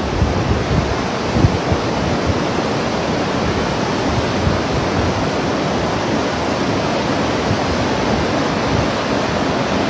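Rain shower falling steadily, an even hiss, with wind gusting on the microphone in the first couple of seconds.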